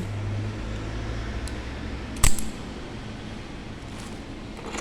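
A steady low mechanical hum that cuts off with a single sharp click about two seconds in, leaving a faint hiss.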